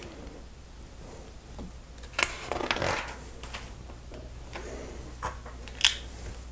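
LEGO bricks being handled and pressed together by hand: small plastic clicks and rustling, with a louder burst of clicking and rustling about two seconds in and a sharp click near the end.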